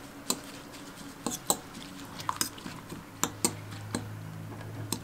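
Metal spoon stirring beaten eggs and chopped parsley in a ceramic bowl, clinking irregularly against the bowl's sides.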